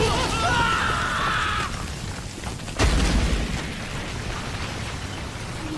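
Cartoon battle sound effects: a high wavering sound in the first second and a half, then a loud boom about three seconds in, over a steady rumbling noise.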